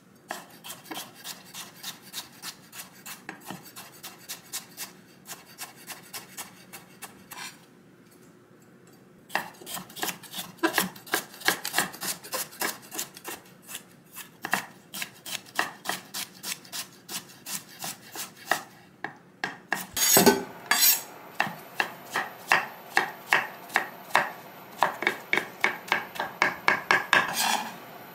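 Chef's knife chopping vegetables on a wooden cutting board: carrot slices, then zucchini chopped fine, in a steady rhythm of knife strokes. The strokes pause for about two seconds early on and come louder and faster in the last third, with a couple of stronger knocks.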